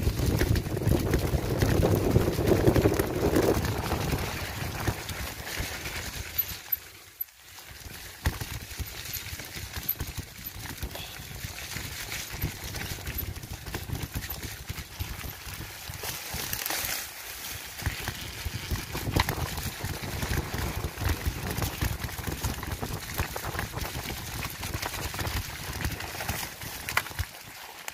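Mountain bike rattling and clattering over a rough dirt singletrack, with tyres running on dirt and grass. Wind rumbles on the microphone in the first few seconds, the loudest part.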